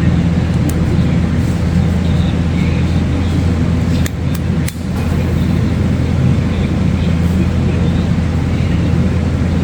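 Electric heat gun running steadily with a constant fan hum while shrinking 4-to-1 sealant-lined heat-shrink tubing over a soldered wire splice. A few light clicks come about four seconds in.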